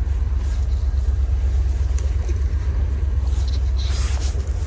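Steady low rumble over the rushing of a shallow creek riffle. Near the end, rustling and crackling of a jacket sleeve rubbing on the phone as a fish is hooked.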